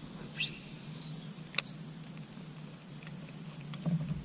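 Steady high-pitched drone of insects, crickets or cicadas, with a faint low hum beneath and one sharp click about a second and a half in.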